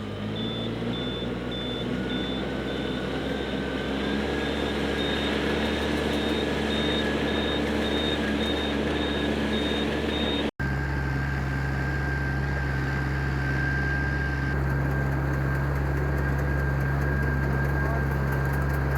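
A vehicle engine running steadily, its pitch rising a little over the first few seconds, then holding level. It cuts out for an instant about ten seconds in and carries on unchanged.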